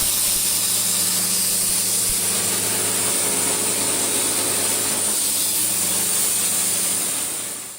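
Portable sawmill running steadily: a low engine hum under a loud, even hiss from the saw. The sound fades out near the end.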